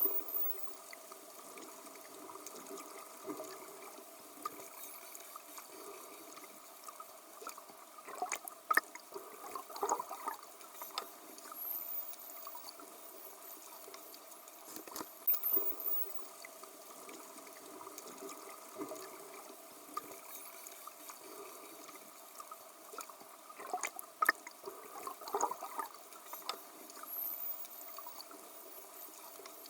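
Dolphins underwater: sharp clicks and short, high, curving whistles over a steady watery hiss, with the loudest bursts of clicks coming twice.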